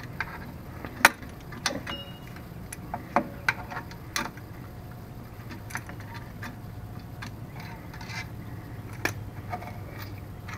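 Sharp metal clicks and clinks of a brake tool working the springs and hardware of a drum brake's shoes, scattered through the first four seconds with one more near the end, over a steady low hum.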